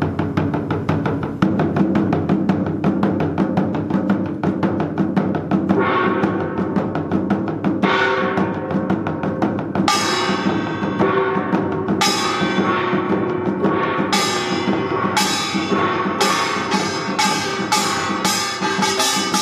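Korean pungmul percussion: janggu hourglass drum and buk barrel drum playing a steady, dense rhythm. Bright ringing metal gong strokes join about six seconds in, a few seconds apart at first and then coming faster, about two a second near the end.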